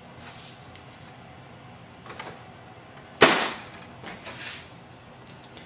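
Canon imageCLASS MF453dw's document-feeder lid swung shut over the scanner glass, landing with a single sharp clack about three seconds in. Soft paper-handling rustles come before it.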